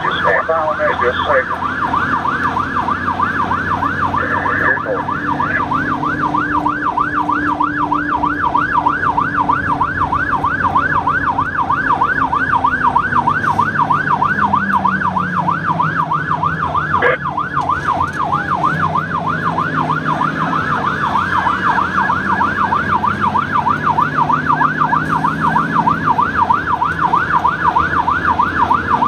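Emergency siren in a fast yelp, sweeping up and down about four times a second. Under it is the running engine and road noise of a vehicle under way, its pitch slowly rising and falling with speed.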